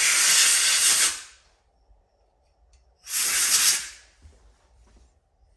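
Two blasts of compressed air from an air nozzle, the first at the start lasting about a second, the second about three seconds in.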